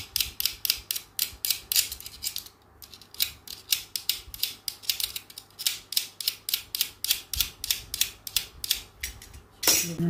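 Snap-off utility knife blade scraping at a small metal part in short, quick strokes, about three to four a second, with a louder stroke near the end.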